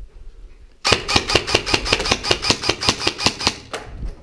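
Airsoft replica firing a rapid burst of about twenty shots at roughly seven a second, starting about a second in and lasting close to three seconds.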